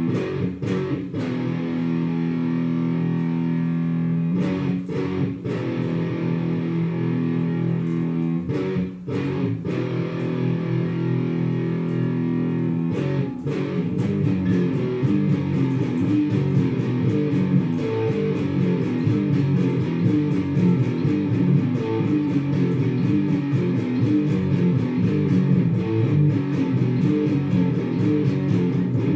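Heavy rock music with distorted electric guitar: held chords with brief breaks at first, then a fast, driving rhythm from about halfway through.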